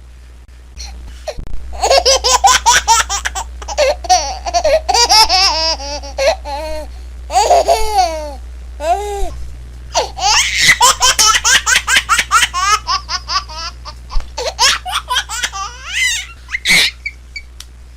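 A baby laughing hard in repeated bouts of quick, high-pitched giggles and squeals, starting about a second and a half in.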